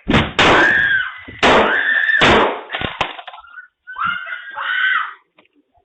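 Loud banging and crashing as a man throws his shoulder into a front door, busting the deadbolt, with a voice screaming over it, picked up by a Ring doorbell camera's microphone. Two shorter shouts follow near the end.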